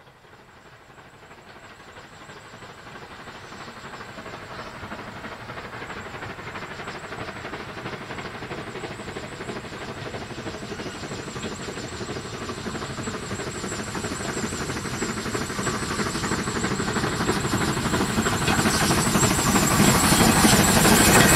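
Sound-edited steam locomotive sound laid over a model GWR pannier tank hauling goods wagons: the engine working steadily as it approaches, growing louder throughout.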